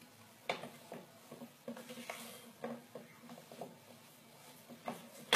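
Semolina dough being mixed by hand in a glass bowl: soft, irregular taps and squishes of fingers working wet dough against the glass, with one sharper knock near the end.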